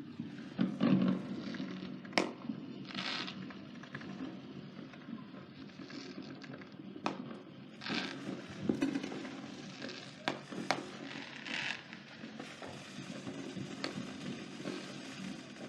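Fireworks going off: scattered sharp bangs, with several short crackling bursts in between.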